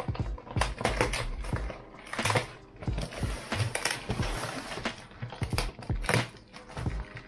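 A cardboard parcel wrapped in plastic tape being handled and turned over on a desk: irregular knocks, scrapes and clicks, with a stretch of crinkling and rustling of the plastic wrap and paper about three seconds in.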